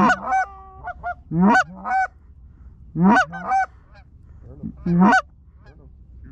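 Canada goose calling in loud, close honks and clucks, mostly in quick pairs about every second and a half, with fainter clucks between. The calls die down about five seconds in. Their loudness and closeness against a flock flying high overhead point to hunters' goose calls rather than the birds themselves.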